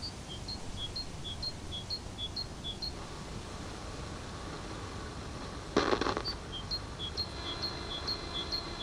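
A bird repeats a short two-note chirp, high then low, about twice a second, over a steady low hiss. About six seconds in, a short loud burst of static comes as the tuning knob of an old stereo receiver is turned; the chirping then resumes over a thin steady high tone.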